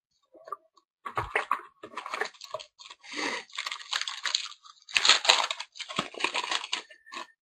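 Foil wrapper of a hockey trading-card pack crinkled and torn open by hand, in irregular bursts of rustling.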